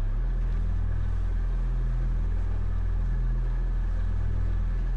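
Steady low rumble of ship engines at sea, even throughout with a faint hiss above it.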